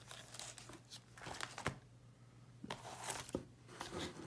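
Clear plastic card-binder sleeve pages crinkling and rustling as a page is turned, in a few short bursts: a cluster in the first second and a half and another around three seconds in.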